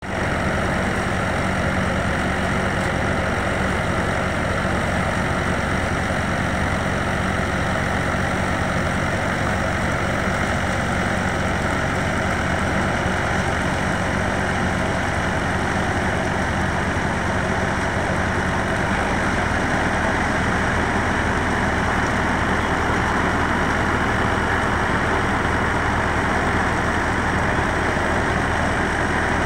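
A tractor's diesel engine runs steadily, driving a paddy thresher, under the thresher's continuous whirring and rushing as straw is blown out. The engine's low note shifts slightly about two-thirds of the way through.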